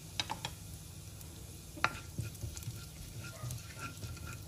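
Cumin seeds sizzling in hot ghee in a nonstick kadai, with scattered sharp pops and crackles as the seeds splutter; a wooden spatula stirs them near the end.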